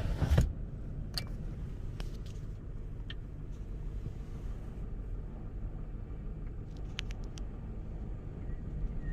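Low, steady wind rumble in a lull between strong gusts, with a few faint ticks and rattles scattered through it.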